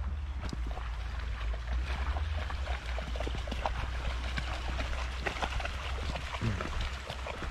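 Wind buffeting the microphone in a steady low rumble, over an irregular patter of small clicks and crackles.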